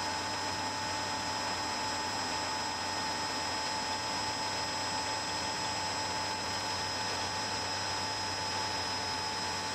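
Metal lathe running steadily, its spinning chuck and drive making an even hum with a constant high whine, while a reamer is fed through the bore of the workpiece.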